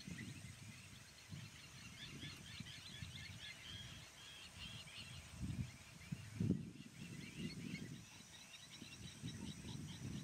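Rhinos snorting and grunting in irregular low bursts, with small birds chirping high and busily behind them.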